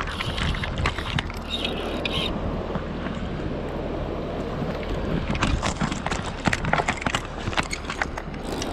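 Footsteps on loose river stones, with stones clacking underfoot, the clacks growing frequent about five seconds in, over a steady rush of river water and wind on the microphone.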